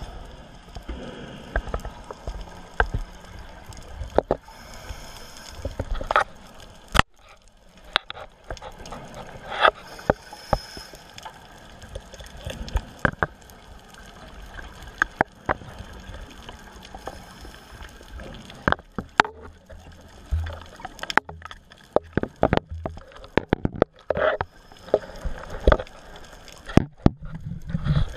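Underwater sound picked up through a dive camera's housing: scattered sharp clicks and knocks, irregular and at times in quick clusters, over a low rush of water.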